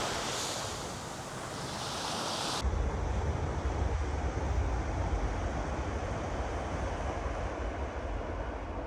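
Ocean surf washing on a beach as a steady rush. From about two and a half seconds in, heavy wind buffets the microphone with a low rumble.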